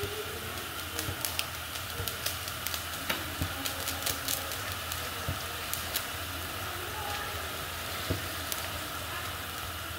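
Shallots simmering in liquid in a stainless steel skillet on a gas burner: a steady sizzle with many small scattered bubbling pops, the béarnaise reduction boiling down. A spatula stirs the pan near the end.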